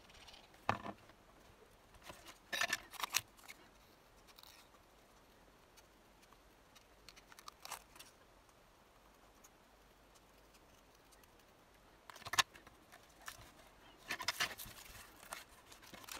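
Small scissors snipping card stock to trim out a stamped sentiment, with a scattering of short snips and paper-handling rustles between quiet stretches.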